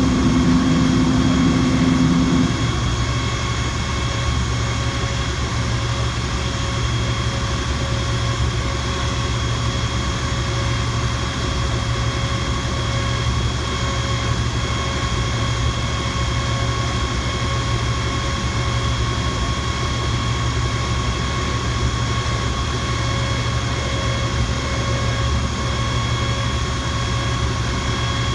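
Fire engine running steadily: a low engine drone with a steady high whine layered over it, typical of a diesel engine held at speed to drive the pump. A lower tone drops away about two and a half seconds in.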